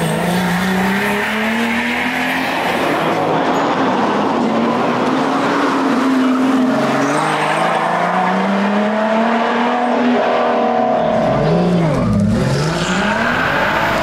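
Lotus Exige S engine revving hard at race pace, its pitch climbing through each gear and dropping at each change or lift. Near the end the pitch dives steeply and then climbs again.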